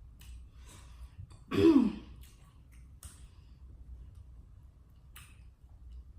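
Faint mouth clicks and chewing while eating, broken about a second and a half in by one short, loud voiced vocal sound that falls in pitch.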